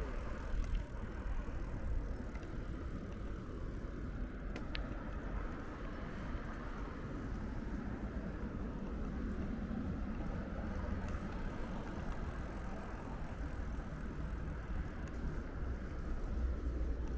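Steady outdoor street noise with a low rumble of road traffic.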